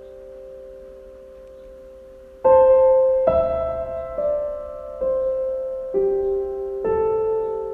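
Background piano music: a soft held chord for the first couple of seconds, then notes struck about once a second in a slow melody.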